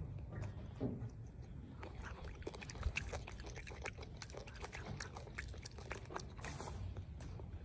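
A monkey chewing and biting food at close range, a run of irregular crunchy clicks.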